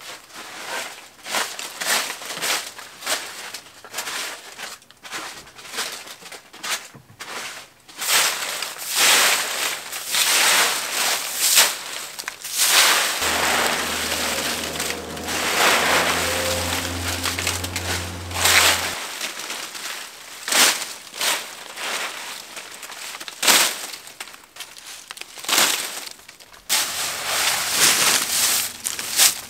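Straw broom sweeping dry fallen leaves across concrete, a crisp rustling swish with each stroke, the strokes coming thick and fast through the middle. A low steady hum joins in for several seconds midway.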